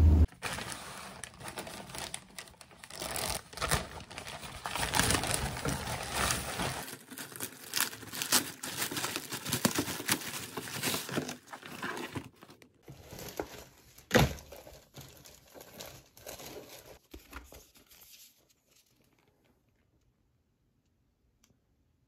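Plastic packaging crinkling and rustling as an item is pulled out of a plastic mailing bag, with a few sharper knocks. It dies away to near silence for the last few seconds.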